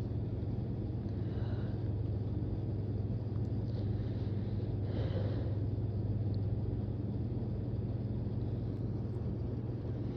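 Steady low hum under a faint even hiss, with two soft, brief sounds about a second and a half and about five seconds in.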